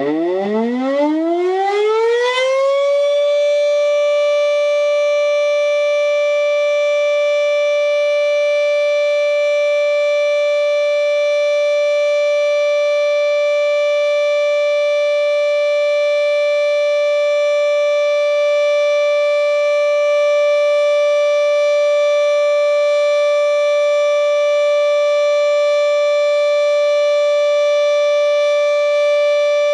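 Civil-defence siren rising in pitch over the first few seconds, then holding one loud, steady tone: the siren sounded as the signal for a moment of silence (mokutō).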